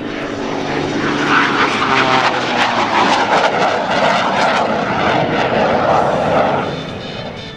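Screamin' Sasquatch, a Waco biplane fitted with a Pratt & Whitney R-985 nine-cylinder radial turning a Hartzell propeller and a GE CJ610 turbojet under its belly, flying an aerobatic pass. The engine and propeller noise swells loud about a second in and falls away near the end.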